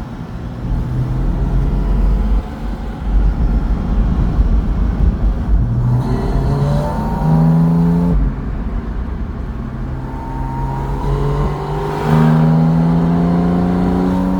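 Porsche 718 Spyder RS's naturally aspirated flat-six running hard, its pitch climbing in steps. The note cuts off abruptly about eight seconds in, then climbs again and is loudest from about twelve seconds.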